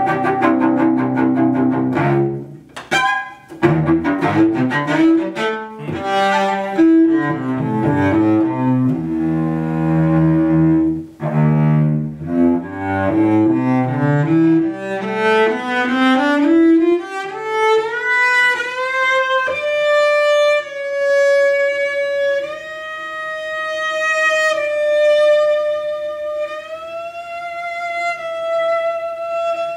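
Solo cello, bowed: quick, busy passages in the low and middle register for about the first half, then a climb up into the high register. The second half is long held high notes that step and slide gradually higher.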